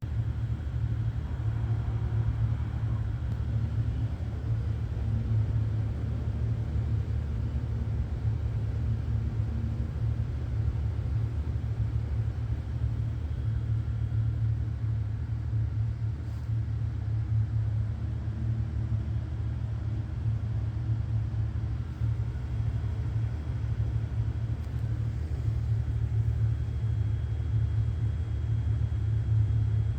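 Domestic cat purring steadily, close to the microphone: a continuous low rumble with a fast, even pulse.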